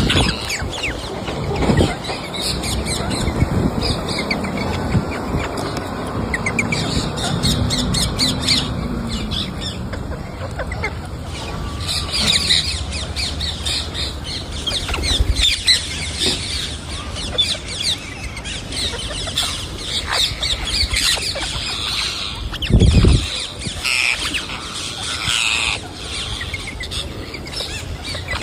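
Pet parrot eating fruit: many small crunching and pecking clicks, with bird squawks and chirps that grow busier from about halfway through. There is a brief low thump near the end.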